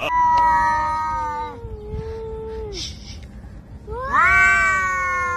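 Cats yowling: two long, drawn-out calls, the first sliding slightly down in pitch, the second rising at its start and then held.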